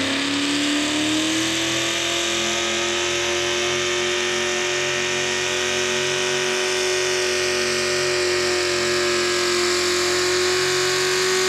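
Modified pulling tractor's engine at full throttle under load as it drags the weight-transfer sled, its pitch climbing over the first couple of seconds and then held steady and loud.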